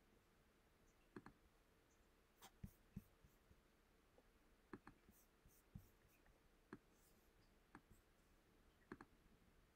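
Faint, scattered computer mouse clicks over near silence, a few of them in quick pairs like double-clicks.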